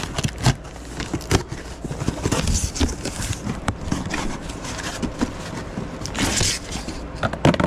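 Scissors slitting the packing tape on a cardboard box, then cardboard flaps scraping and rustling as they are pulled open and a hand reaches inside, with many small clicks. The loudest is a longer scraping rasp about six seconds in.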